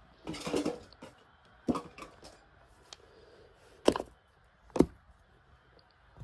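A series of sharp knocks and clatters indoors, like objects being handled, bumped and set down on a hard surface. A rustling cluster comes about half a second in, then single knocks, and the two sharpest come near four and five seconds.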